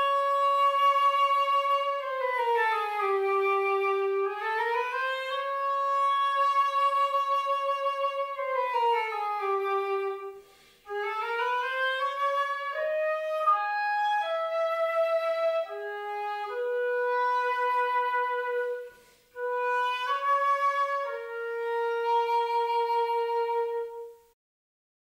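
Solo woodwind melody in three phrases, separated by short breaks, heard through a simulated theatre's room acoustics (an ODEON auralisation). The first phrase slides smoothly between notes, and the later phrases move in distinct steps.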